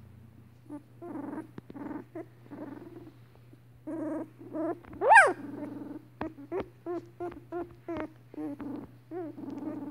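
Two-week-old Sheepadoodle puppies squirming together, grunting and squeaking. One loud high squeal comes just after five seconds, followed by a quick run of short rising squeaks, about three a second.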